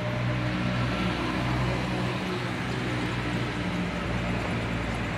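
Street traffic below: a steady low engine hum from road vehicles.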